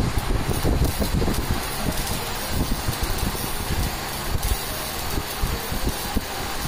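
Electric arc welding on a replaced steel body panel: an irregular crackle over a low, steady rumble.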